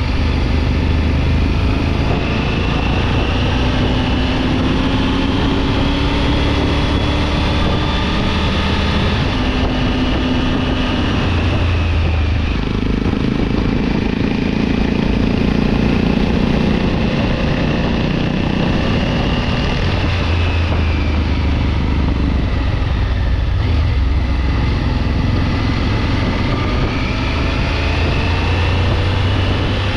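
Triumph Tiger 900 GT Pro's three-cylinder engine running under way, mixed with wind noise. The engine note rises and falls with the throttle, dipping about two-thirds of the way through and then climbing again.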